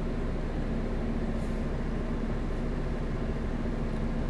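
Double-decker bus diesel engine running at a steady speed, a constant hum with no change in pitch or level.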